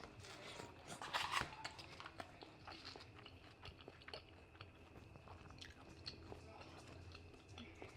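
Close-miked eating: a person biting and chewing food, with many small wet clicks and crackles and a louder crunchy bite about a second in.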